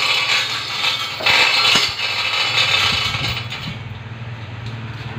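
Mechanical rattling, creaking and scraping of metal as a heavy steel hydraulic cylinder tube is handled. A steady low hum comes in at about two seconds.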